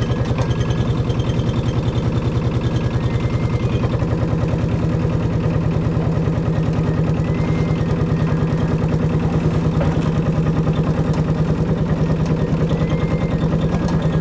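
Mini excavator's small diesel engine running steadily, with an even, fast pulsing chug.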